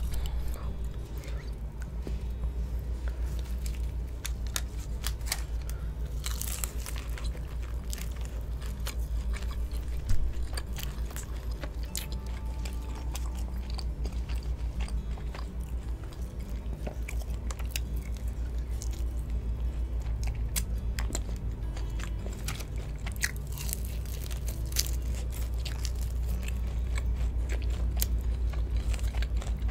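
Close-miked eating of crispy fried chicken: biting into the crunchy coating, with crackling crunches and chewing throughout, over background music.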